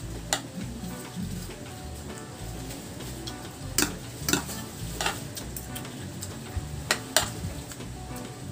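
Metal spoon and fork clinking and scraping against a ceramic plate and bowl while eating rice and pork steak, with about six sharp clinks, the loudest in the middle and near the end.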